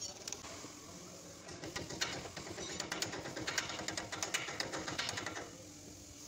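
Aerosol spray can spraying onto a truck's rear axle bearing and seal: a hissing, crackling spray that starts about two seconds in and cuts off about five and a half seconds in.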